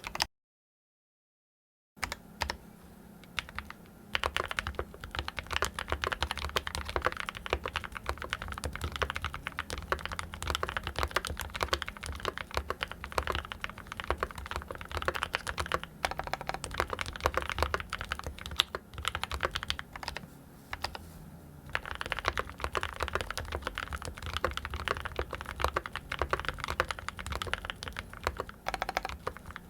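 Typing on a Mode 65 mechanical keyboard fitted with Gateron Ink Black linear switches, unlubed and stock on the letter keys, on an FR4 plate in an aluminium case with a brass bottom, plate foam and silicone damping. Fast, irregular key clacks, with about a second and a half of total silence just after the start and a couple of brief slower patches.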